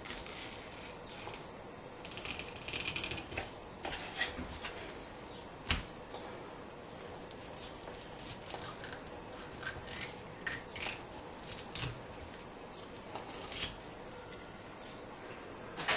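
Knife cutting and scraping along a herring fillet on a wooden cutting board: a run of short scratchy strokes and light taps, with one sharper knock about six seconds in.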